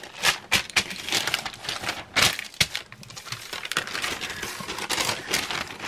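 Rustling with many light clicks and knocks scattered throughout: hands handling things in a kitchen.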